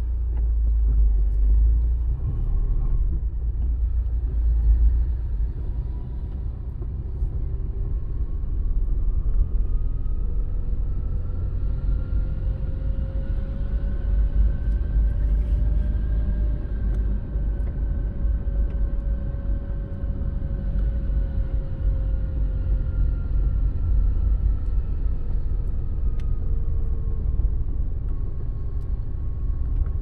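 A car driving at low speed: a steady low rumble of engine and road noise, with the engine's pitch slowly rising for about ten seconds and then falling back again.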